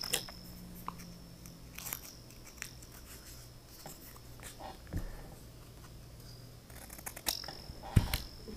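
Scissors snipping small scraps of paper: a few sharp snips, loudest right at the start and again near the end, a high ring lingering after some of them, with light paper rustling in between.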